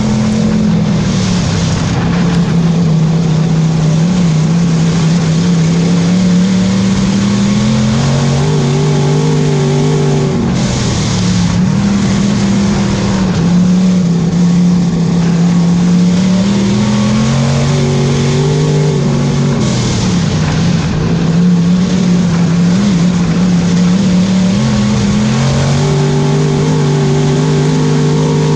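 Dirt-track Thunder Car's engine heard from inside the cockpit during racing, loud throughout, its pitch climbing under throttle and falling back on lifting, again and again every several seconds around the oval. Brief rushes of hiss come in about a second in, around ten seconds in and around twenty seconds in.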